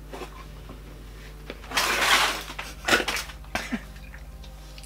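A loud breathy burst about two seconds in, followed by a few short bursts of laughter.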